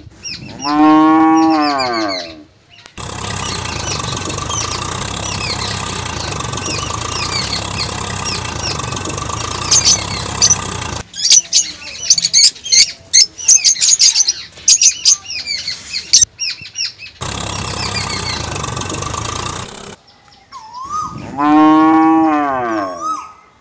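A cow mooing twice, each call about two seconds long, once at the start and once near the end. In between, birds chirp over a steady hiss of outdoor ambience, with a run of sharp chirps and clicks in the middle.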